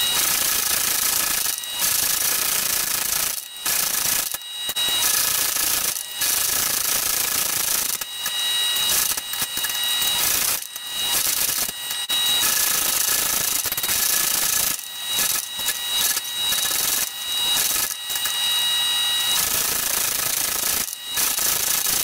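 Powered forging machine running as its dies work a glowing steel axe blank: a loud, continuous mechanical noise with a few steady whining tones, broken by short pauses every second or two.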